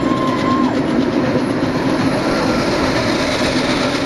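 Blackbeard's Lost Treasure Train mine-train roller coaster running past on its steel track: a steady rumble and clatter of the train's wheels. A thin squeal stops within the first second.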